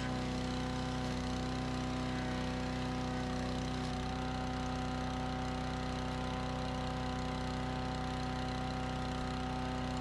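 Wood chipper's engine running steadily at one even speed.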